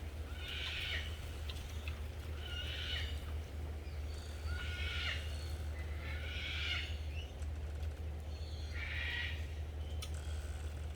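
An animal calling five times at roughly two-second intervals, each call short and harsh, over a steady low hum.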